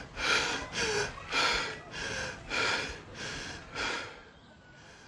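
A person breathing hard, quick loud breaths in and out about every half second, which stop about four seconds in.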